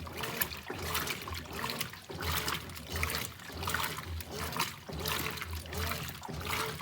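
Brastemp BWK17 washing machine agitating a load of jeans in water: rhythmic sloshing and splashing that swells and fades over and over, with a low motor hum underneath.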